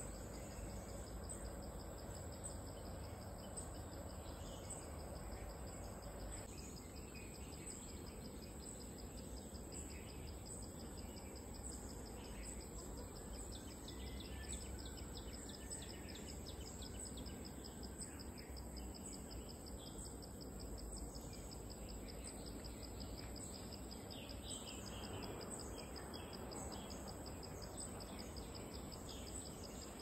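A steady high-pitched insect chorus from the forest, with birds calling now and then over it and a low steady rumble underneath.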